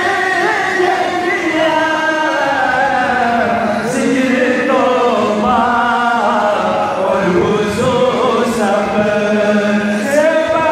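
A man singing a tarana, a Sufi anthem, into a microphone in a chanting style, holding long notes that waver in pitch.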